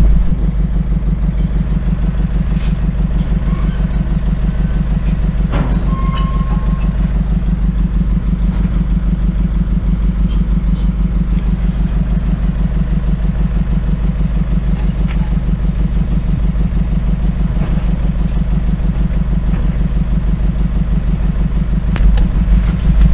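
Work truck's engine idling with a steady low, even throb. A few sharp knocks and clatters stand out over it, the loudest about six seconds in and again near the end.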